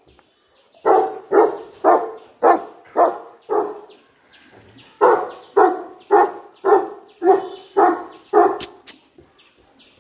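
A dog barking in steady runs of about two barks a second: six barks, a pause of about a second and a half, then seven more.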